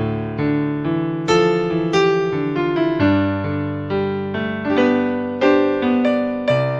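Casio CTK-4200 arranger keyboard playing a piano-type preset voice: chords and melody notes struck about once or twice a second, each fading after its attack.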